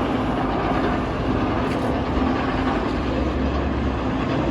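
Heavy construction machinery running steadily: a constant low engine rumble with a steady hum.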